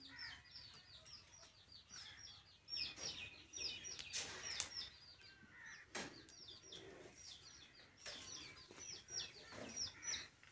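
Small birds chirping continuously: many short, high-pitched chirps, several a second and overlapping. A few brief rustles and knocks come through, the sharpest about six seconds in.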